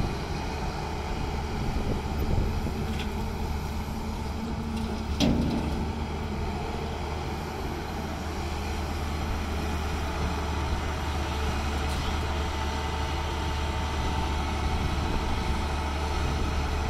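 Hyundai 210 crawler excavator's diesel engine running steadily under load as it digs and swings, with a single sharp clank about five seconds in.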